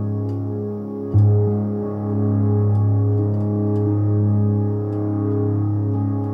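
Access Virus TI2 synthesizer playing sustained, held chords over a deep bass note, with a new chord struck about a second in.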